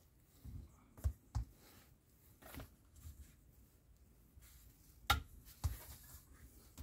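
Light, scattered knocks and clicks as metal model exhaust headers are handled and set down on cardboard lying on a kitchen scale, the loudest knock about five seconds in.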